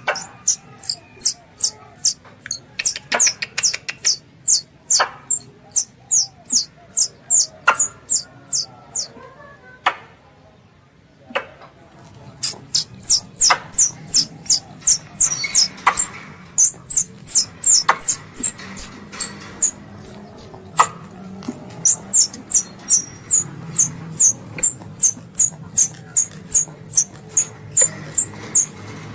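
Squirrel call used as a hunting lure: a rapid series of short, very high chirps, each sliding downward, about three a second, with a pause of a few seconds near the middle before the chirping resumes.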